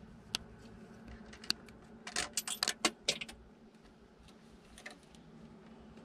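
Wire terminals and connectors being handled and pulled off at a starter solenoid while the wiring is disconnected: a couple of sharp clicks, then a quick cluster of small clicks and rattles about two seconds in, with a few faint ticks after.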